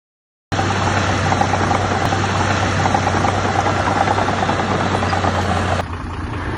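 Heavy diesel engine of earth-moving machinery running steadily under load, starting abruptly about half a second in with a strong low hum. Near the end the sound drops suddenly to a quieter, different engine sound.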